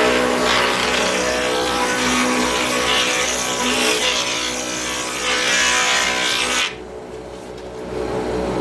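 Benchtop router table running at speed with a steady whine while the bit cuts wood. The cutting noise stops suddenly near the end as the pass finishes, and the motor runs on unloaded.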